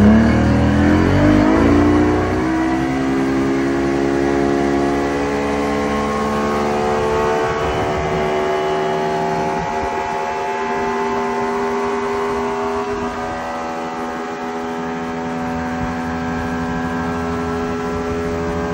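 Remanufactured 175 HP Evinrude V6 two-stroke outboard rising in pitch over the first couple of seconds as the boat gets up on plane, then running steadily at high speed. The motor is mounted too low on the transom, which the owner says eats horsepower.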